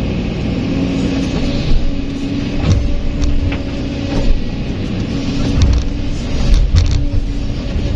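Kobelco SK200 excavator's diesel engine working under hydraulic load as the full bucket swings and dumps soil and rocks into a dump truck's steel bed. Several sharp knocks and thuds of rock landing are heard over the steady engine.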